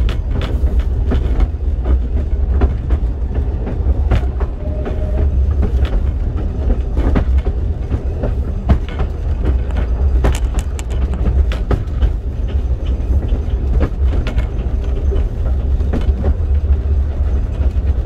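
Talyllyn Railway narrow-gauge train carriage on the move, heard from inside: a steady low rumble with irregular sharp clicks and knocks from the wheels on the track.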